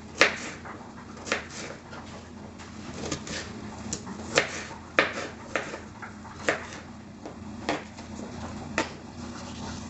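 Kitchen knife cutting cucumber on a cutting board: about ten sharp, irregularly spaced knocks as the blade strikes the board, roughly one a second.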